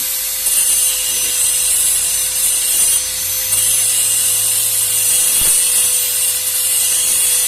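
Angle grinder running with a steady whine, its disc grinding steel in long passes with a brief let-up about three seconds in. It is dressing the flared mouth of a truck propeller-shaft universal-joint yoke bore, swollen by hammering when the cross was removed, so the bearing cup and needle rollers can seat.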